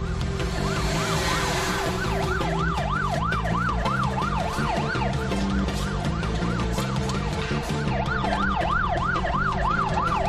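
Emergency vehicle siren in a fast up-and-down yelp, about three cycles a second, breaking off for a few seconds in the middle and then starting again, over background music.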